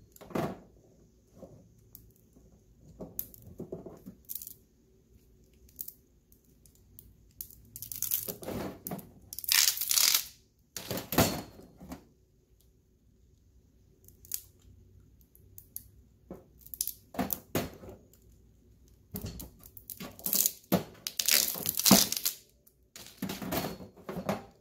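Plastic insulation being peeled and torn off heavy copper wire by hand with side cutters, in irregular ripping bursts of a second or two, with a few sharp clicks between them.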